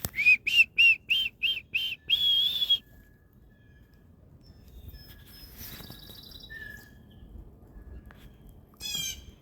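A songbird singing a quick series of about seven short, clear whistled notes, then one longer, higher note, with fainter calls later on.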